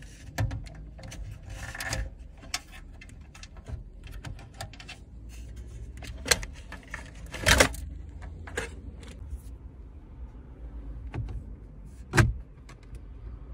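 Irregular clicks, knocks and light metallic rattles of a car radio's metal-cased unit being handled in its dashboard opening, over a low steady hum. A sharp knock near the end comes as the replacement head unit is pressed into the dash.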